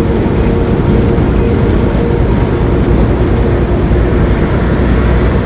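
Steady low rumble of a semi-truck on the move, heard from inside the cab: engine drone and road noise with a faint steady whine.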